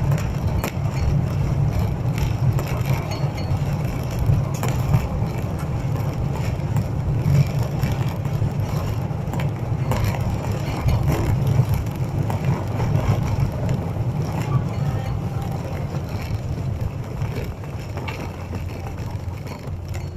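Cabin noise of an Airbus A380 landing: a heavy, steady rumble with many rattles and knocks, easing gradually in the second half as the aircraft slows.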